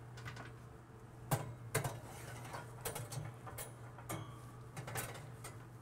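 Metal oven rack and tray clinking and knocking against the oven's shelf runners as they are slid into place: a few scattered light knocks over a steady low hum.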